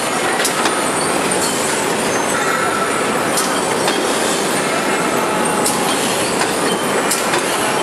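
Veneer composer (core veneer jointer) running: a steady mechanical clatter with a few sharp clicks scattered through it.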